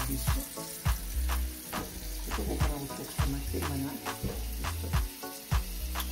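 Background music with a steady beat of about two strikes a second and a moving bass line, over a constant hiss.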